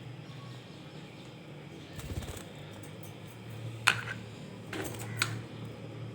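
Pet budgies making a few sharp clicks and taps, the loudest about four seconds in, over a steady low hum.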